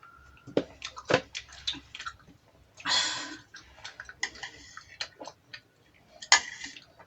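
Close-up mukbang eating sounds: wet chewing and mouth clicks and smacks, in quick irregular clusters. There is a short noisy burst about three seconds in and another sharp one a little after six seconds.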